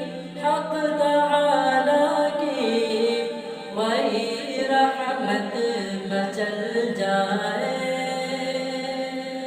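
Male voice singing a drawn-out, melismatic line with no clear words, over a steady humming drone, in the style of an unaccompanied Urdu hamd. It fades near the end.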